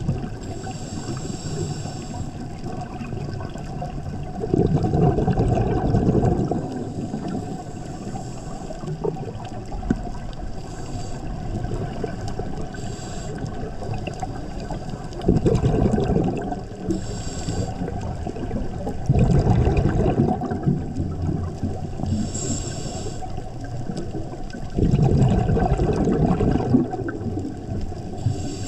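Scuba regulator breathing heard underwater over a steady low rumble. There are short hissing inhalations and four loud bursts of bubbling exhaled air, several seconds apart.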